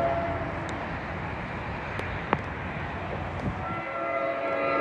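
Low rumble of a passing train on the rails, dying away, then about four seconds in a distant oncoming train starts sounding its air horn, a chord of several steady tones growing louder.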